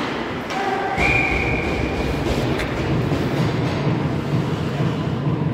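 A hockey referee's whistle gives one steady blast of about a second, about a second in, stopping play. A low, steady rumble comes in with it and carries on, with a faint regular beat about twice a second in the second half.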